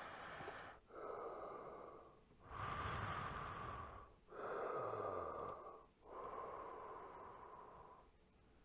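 Darth Vader-style respirator breathing: slow, hissing mechanical breaths, in and out, each about a second and a half long. Five of them follow one another before it stops about eight seconds in.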